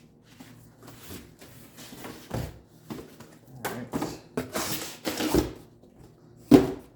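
Packaging and burr grinder parts being handled while unboxing: a series of rustling, scraping handling noises, then one sharp knock near the end as something hard is set down or bumps.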